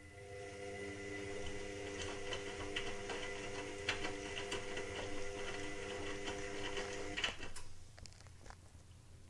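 Indesit WIXL143 washing machine running briefly: a steady mechanical hum with a rattle of small clicks for about seven seconds, then it cuts out with a louder click. The machine's fault is that it stops like this and will not finish its cycle.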